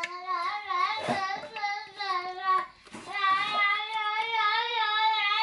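A small child singing in a high voice: a few long notes that waver in pitch, with short breaks between the phrases.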